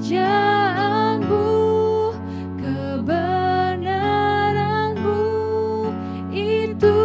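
Two women singing an Indonesian worship song over held chords from the backing accompaniment. The chord changes a little over a second in and again near the end.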